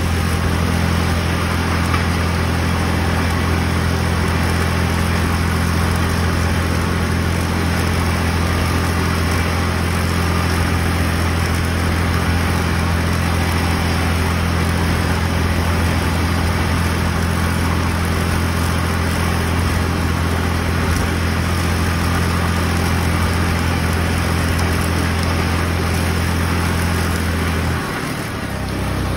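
Tractor engine running steadily while its front-mounted, belt-driven mower cuts strawberry foliage, a steady low hum under a clattering mechanical noise. About a second before the end the engine note drops.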